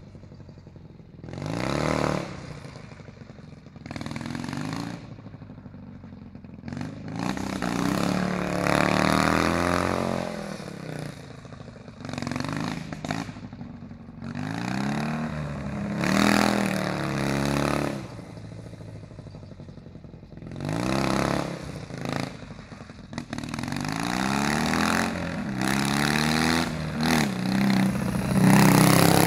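Go-kart powered by a Dnepr MT10-36 650 cc four-stroke flat-twin motorcycle engine, revving up and easing off over and over in surges, its pitch climbing with each burst of throttle. It grows louder near the end as the kart comes close.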